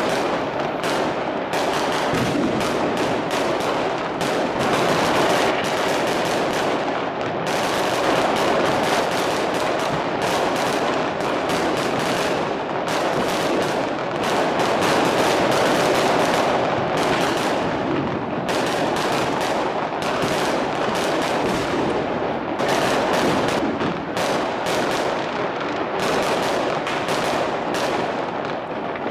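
Fireworks crackling and banging in a rapid, unbroken barrage of sharp pops, dense like machine-gun fire.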